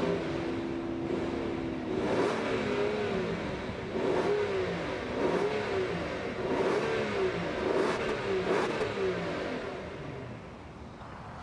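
2014 Rolls-Royce Wraith's 6.6-litre twin-turbo V12 free-revving while stationary, heard from behind the exhaust tips. A rev is held for about two seconds, then comes a string of about six short throttle blips that rise and fall, and it settles back toward idle near the end.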